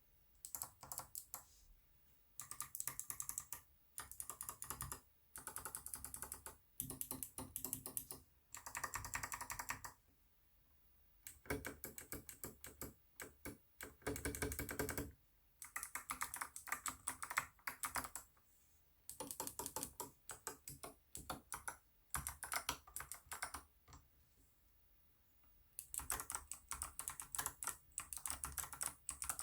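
Mechanical keyboard with unlubricated clicky Kailh Box White switches: its stabilized keys are pressed rapidly in short bursts of clicks, with brief pauses between bursts.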